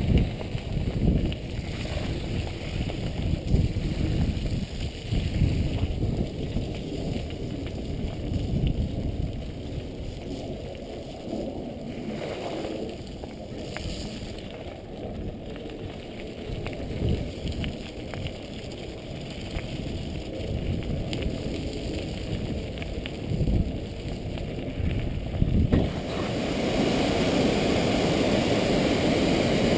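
Wind buffeting a helmet camera's microphone over the tyre noise of a mountain bike rolling along a rough path, rising and falling in gusts. Near the end this gives way abruptly to the steady rush of water pouring down a large cascade.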